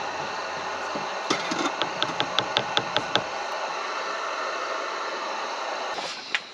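A quick run of about nine evenly spaced clicks, about seven a second, about two seconds in, over a steady hiss, with a few scattered knocks and a sharp tick near the end.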